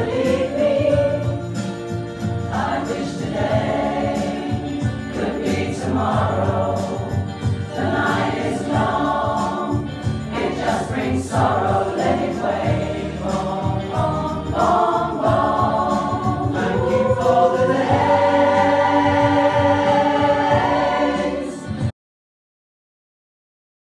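Mixed choir of men's and women's voices singing a song together, cutting off to dead silence about two seconds before the end.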